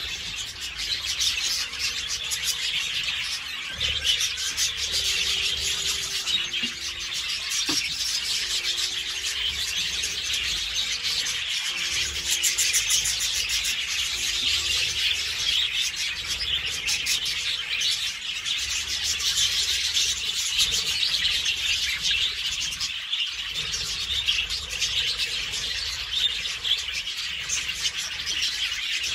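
A large flock of budgerigars chattering and warbling all at once: a dense, unbroken high twittering.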